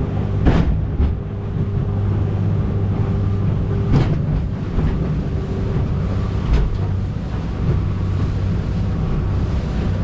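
A small boat's motor running steadily under load, with the hull slamming into waves three times in rough, choppy water.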